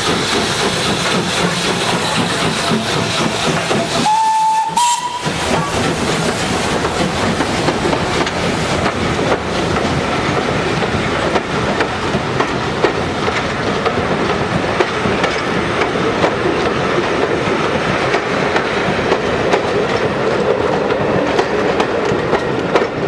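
M7 class 0-4-4 tank steam locomotive pulling away with its train: steady steam hiss and the running noise of the coaches rolling past. A short steam whistle sounds about four seconds in.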